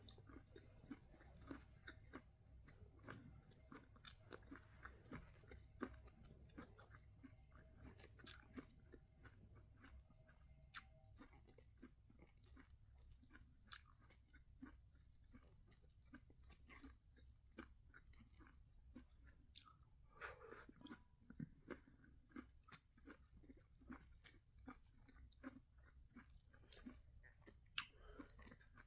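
Faint, irregular crunching and chewing of sweet corn kernels as a person eats corn.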